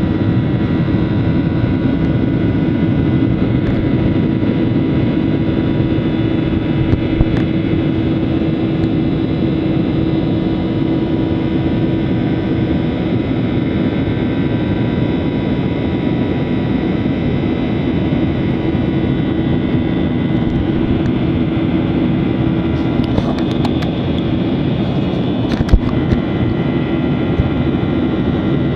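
Jet airliner's engines running steadily at high power during takeoff and climb, heard from inside the cabin as a loud, even rush of noise with a steady hum. A few brief clicks and a knock near the end.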